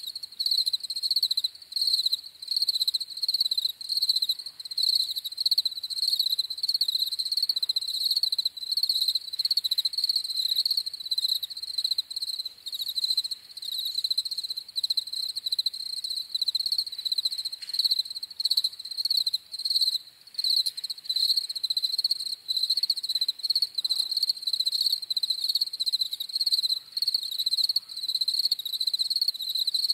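A chorus of European field crickets chirping at night: a dense, high-pitched pulsing song that goes on without a break.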